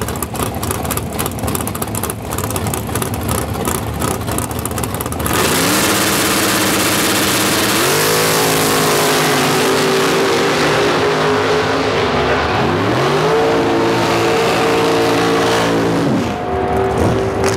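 Chevrolet S-10 drag pickup's engine idling choppily. About five seconds in it is revved hard along with a loud rush of spinning tyres: the pitch climbs and holds high, drops briefly twice and climbs back each time.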